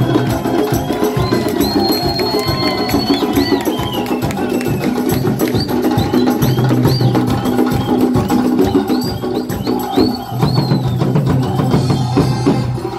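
Hand drums played in a fast, steady rhythm with other percussion, and short high whistle-like sounds rising and falling above the beat, one held for nearly a second a couple of seconds in.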